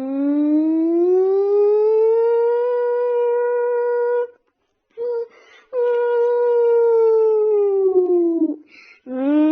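Siren wail of a mock EAS alarm, one steady tone that slides up and down. It climbs for about two seconds and holds, breaks off around the middle, then slowly falls in pitch and starts climbing again near the end.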